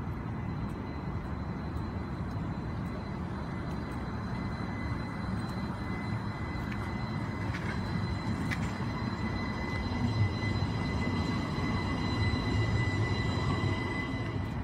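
A Portland Streetcar tram running past on its rails: a low rumble with a steady high electric whine over it, growing louder about ten seconds in as it comes closest.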